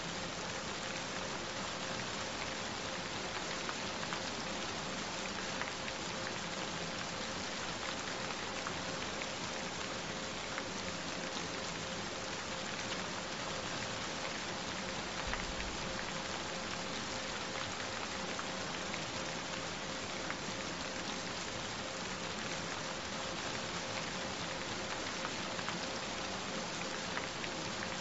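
Recorded steady rain: a dense, even hiss with many small drop ticks scattered through it, and a steady tone held underneath.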